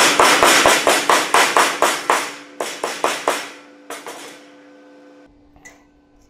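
Hand hammer rapidly striking the edge of a cut steel rose-petal plate lying on a wooden plank, about five quick blows a second, denting marks into the metal. The blows stop about three and a half seconds in, followed by a few lighter taps.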